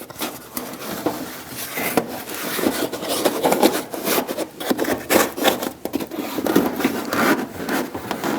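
Insulation pad being slid and pushed into place against the truck body: irregular rubbing and scraping with small crackles and ticks.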